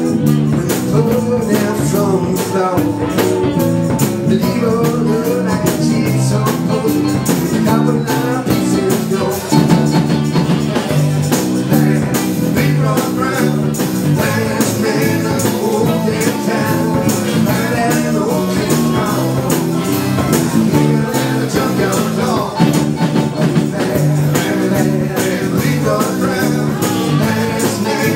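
Live dance band playing a rock-and-roll number with a steady beat.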